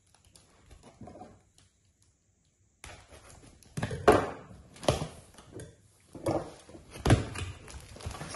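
Cardboard box being cut and opened on a wooden table: quiet handling at first, then a run of knocks, thuds and scrapes of cardboard, loudest about four and seven seconds in.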